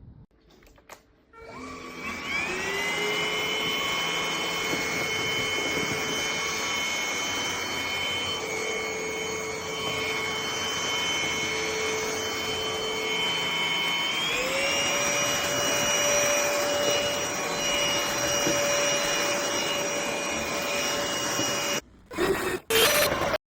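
NADALY cordless stick vacuum motor starting up with a rising whine, then running steadily with a rush of airflow. About two-thirds of the way through, its whine steps up to a higher pitch. Near the end it cuts off, briefly starts twice more, then stops.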